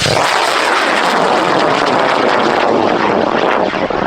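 High-power rocket motor igniting and burning: a sudden loud rushing noise that starts right away and holds steady throughout. This is a long-burn motor.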